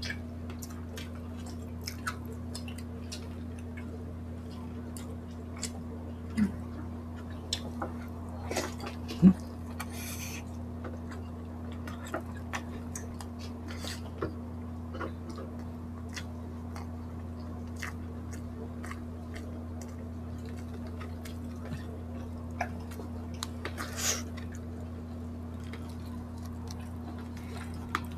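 Close-miked chewing of grilled pork belly and rice, with many small wet mouth clicks and lip smacks scattered through, over a steady low hum. One louder thump comes about nine seconds in.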